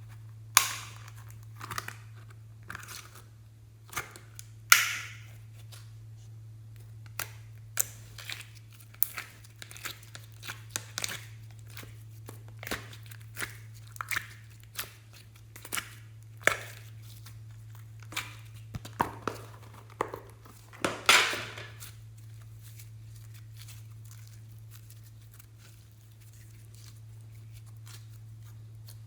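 Slime being squished and stretched by hand, giving irregular sharp pops and crackles with a few louder snaps, which stop about three-quarters of the way through. A steady low electrical hum runs underneath.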